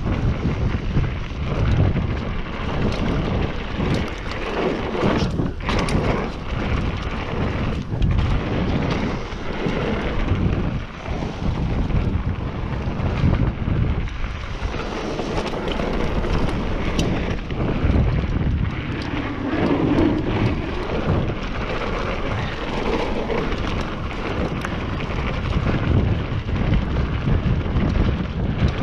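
Downhill mountain bike running down a dirt trail: steady wind rush on the microphone over the rumble of tyres on dirt, with frequent short clicks and rattles from the bike over bumps.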